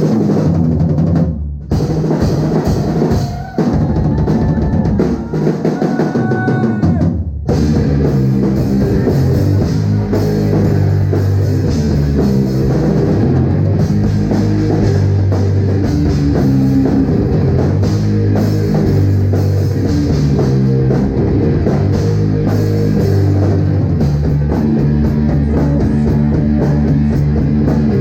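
Live rock band playing loud, the drum kit most prominent, with bass drum and cymbals. The first seven or so seconds go in stop-start hits with short breaks, then the full band plays on without a break.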